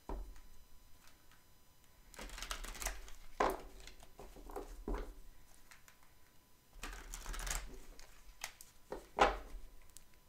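A deck of tarot cards shuffled by hand: two bouts of rustling, snapping card noise with a few sharp taps between them.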